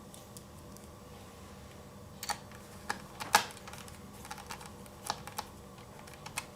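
Irregular sharp clicks and taps of small plastic laptop parts being handled and fitted, starting about two seconds in, with one louder click near the middle.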